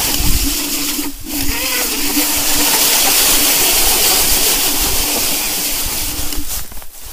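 Electric scooter riding along a trail: loud wind rush over the microphone with a steady motor hum, cutting off sharply near the end.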